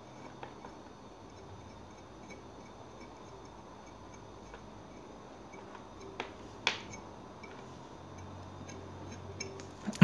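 Faint clicks and taps of hands handling a multitool blade clamped in a metal vise, over quiet room tone. The sharpest click comes about two-thirds of the way through.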